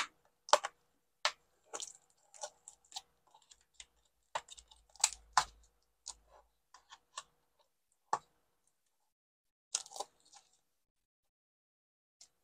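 Irregular sharp clicks and crackles of thin plastic wrap being peeled from a plastic deli cup's rim and its snap-on lid being worked loose, the two loudest clicks about five seconds in.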